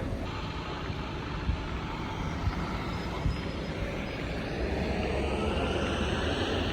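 Jet aircraft engine noise, with a whine that rises in pitch and grows louder through the second half.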